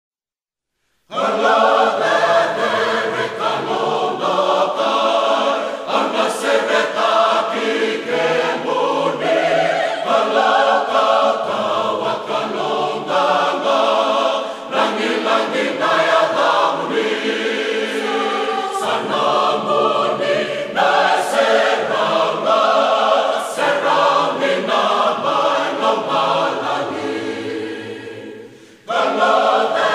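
Choir singing a Fijian hymn in harmony. It starts about a second in, and the singing fades out near the end before a new phrase begins.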